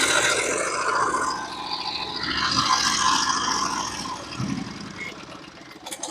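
Portable sawmill's engine running, then dying away over the last couple of seconds as the mill is shut down.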